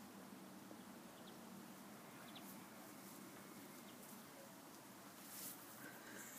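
Near silence: a faint steady background hiss, with a few tiny soft ticks and a brief rustle about five and a half seconds in.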